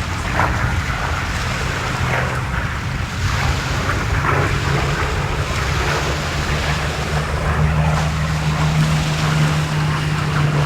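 Wind buffeting the microphone over a steady low engine drone that grows stronger about three-quarters of the way through.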